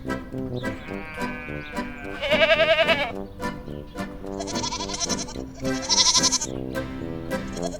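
A goat bleating several times in loud, quavering calls over background music.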